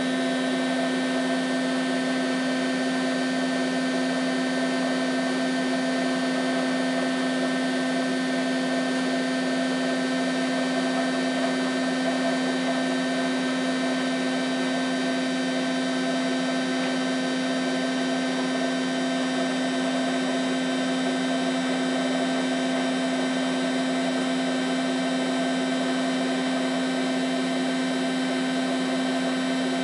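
Hotpoint 1000 De Luxe WM23W Aquarius Ultima washing machine on its final spin, holding a steady speed: an even mechanical whine of several held tones, the strongest one low, with no change in pitch or level.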